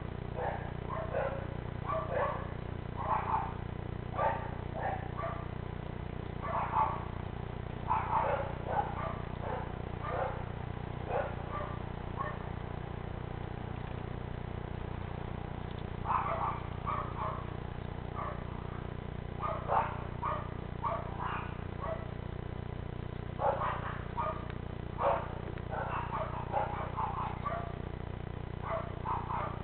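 Short animal calls repeated in irregular clusters, with a lull of a few seconds midway, over a steady low hum.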